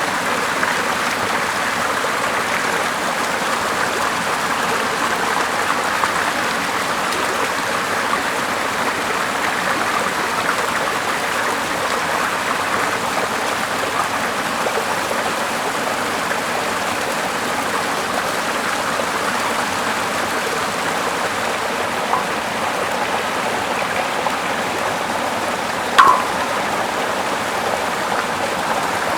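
Steady running water, an even rush with no change, with a single sharp click near the end.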